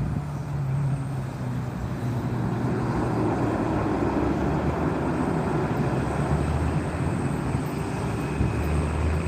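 Jet aircraft engines running, a steady rumble and roar that swells a little over the first few seconds and then holds.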